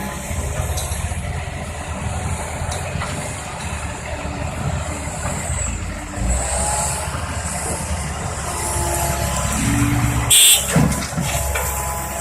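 Tracked excavator's diesel engine running steadily under load, with whining tones that rise and fall as the machine works. A short, loud burst of sound comes about ten seconds in.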